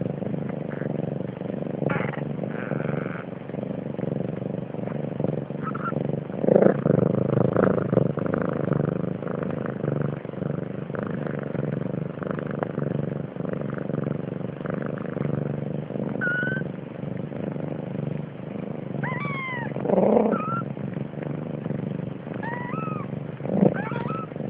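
Young kittens giving several short, high mews in the second half, over a steady low purring rumble from the cats curled together.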